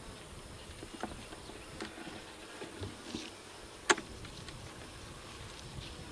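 Light knocks and clicks of a black plastic frame feeder being handled and lowered into a wooden hive body, with one sharp click about four seconds in.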